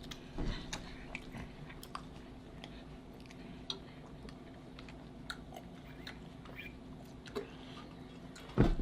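Close-miked chewing of food, with scattered wet mouth clicks over a steady low hum. A loud thump near the end.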